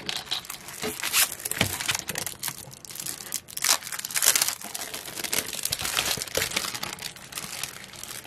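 Plastic packaging crinkling and crackling in irregular sharp bursts as protective plastic corner pieces are worked off magnetic picture frames.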